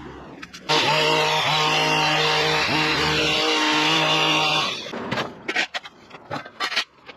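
A power tool starts suddenly and runs loudly and steadily for about four seconds, with its pitch wavering a little under load, then winds down. After it stops there are scattered knocks and scrapes.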